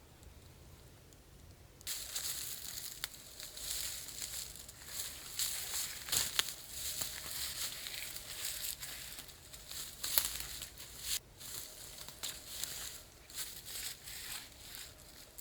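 Close, dry rustling and crunching with many small sharp crackles, starting about two seconds in.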